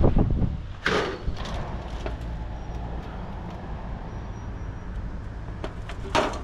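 Tin sheeting being handled and moved: a few sharp metallic clatters and knocks, the loudest about a second in and near the end, over a steady low rumble.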